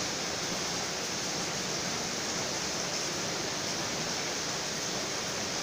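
Steady, even hiss of background noise with no distinct events in it.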